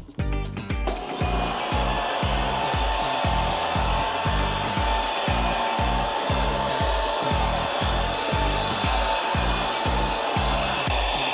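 iNic i50 cordless stick vacuum cleaner switching on about a second in and running steadily: a rushing airflow hiss with a steady high motor whine. Background music with a steady bass beat plays underneath.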